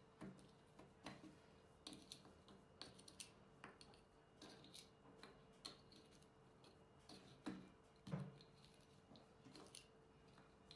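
Plastic bottle caps clicking and tapping as they are picked from a pile and set down one by one: short, light clicks at an uneven pace, one or two a second, with a couple of louder knocks about seven and eight seconds in, over a faint steady hum.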